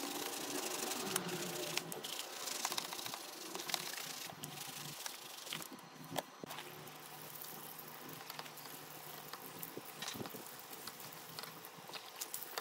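A stiff brush scrubbing soapy sneakers in fast motion, with wet rubbing and crackling foam full of small clicks. It is louder for the first few seconds, then drops to softer crackling and ticks.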